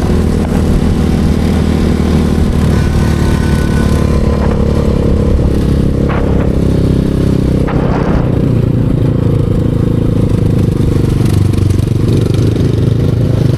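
Enduro motorcycle engine running steadily, with two short sharp knocks in the middle.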